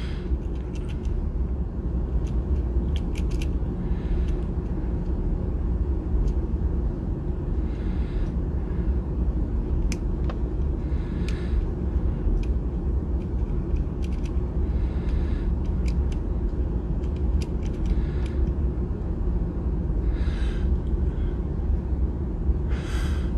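Steady low rumble of background room noise, with faint scattered clicks and soft rustles from hands turning and posing a plastic action figure over its plastic packaging tray.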